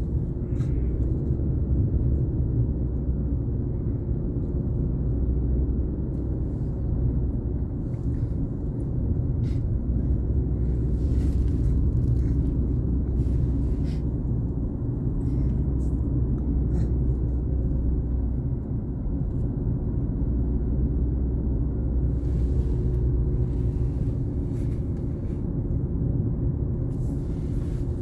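Steady low road and engine rumble heard from inside a moving vehicle, with a few faint light rattles.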